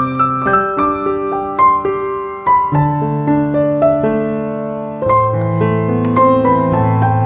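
Background piano music: a melody of single notes over low bass notes.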